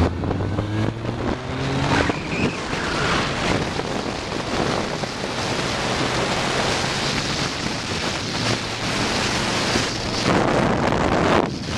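Motorcycle riding at speed, its engine note rising in the first couple of seconds as it accelerates, then mostly buried under heavy wind rush on the microphone.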